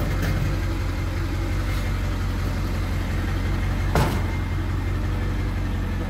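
Vehicle engine idling steadily, with one sharp knock about four seconds in.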